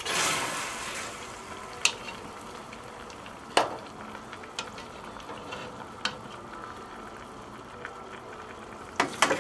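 Braising liquid simmering and bubbling in a cast iron Dutch oven, with metal tongs clinking sharply against the pot and a steel tray every second or two as the meat is lifted out. One clink about three and a half seconds in is the loudest, and a quick run of clinks comes near the end.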